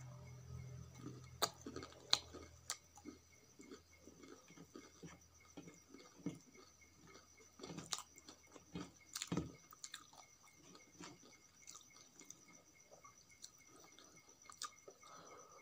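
Close-miked chewing and wet mouth sounds of a person eating rice with tomato chutney by hand, with soft squishes and clicks as fingers mix rice on the plate. A faint steady high whine sits underneath.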